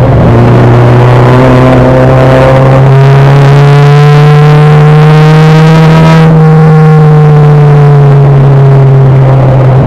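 Four-cylinder engine of a front-wheel-drive enduro race car, loud from inside the cockpit, pulling up through the revs under throttle for about six seconds. The driver then lifts off and the revs fall away.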